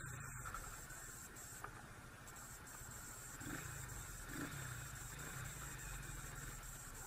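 Faint, steady low rumble of a motorcycle riding in city traffic, with a constant electronic hiss over it.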